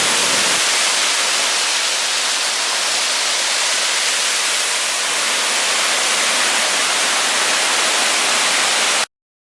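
Waterfall rushing close by, a loud, steady roar of falling water. It cuts off suddenly near the end.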